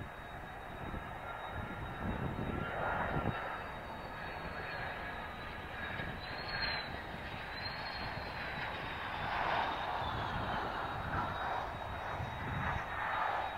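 Kawasaki C-2's two General Electric CF6 turbofan engines at taxi power while the transport taxies: a steady rumble and roar under a high turbine whine that briefly rises and falls a few times about six to nine seconds in.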